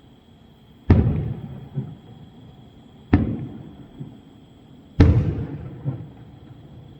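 Aerial fireworks shells bursting: three loud booms about two seconds apart. Each boom rumbles away and is followed by a fainter thump just under a second later.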